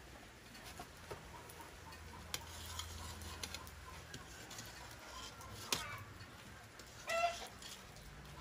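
An aluminium pot's lid being handled over a wood fire, with a few light metal clicks. A chicken clucks once near the end.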